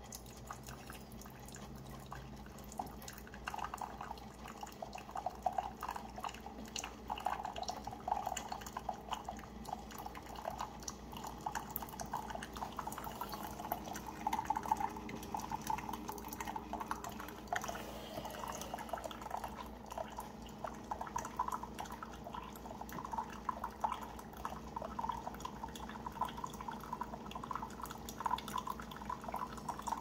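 Keurig single-serve coffee maker running its descaling cycle: water trickling and dripping into a ceramic mug over a steady low hum.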